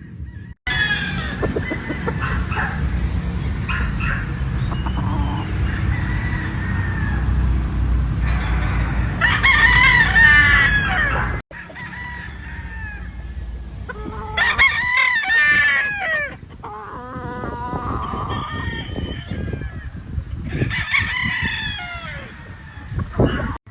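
Gamefowl roosters crowing again and again, several long crows a few seconds apart, with hens and cocks clucking in between. A steady low rumble runs under the first half.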